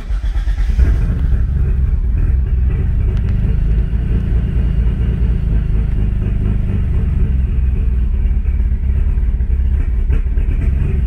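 Mitsubishi 6G72 twin-turbo V6 starting up, catching within about a second and settling into a steady idle, heard from inside the cabin. It is the engine's first start on its new coil-on-plug ignition.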